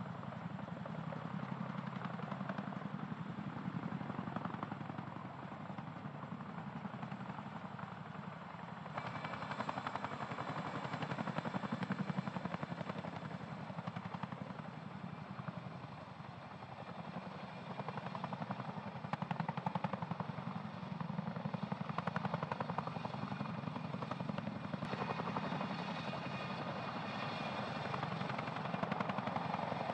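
CH-47 Chinook tandem-rotor helicopters hovering with sling loads: steady rotor and turbine noise with a fast blade chop. The sound changes abruptly about nine seconds in and again near the end.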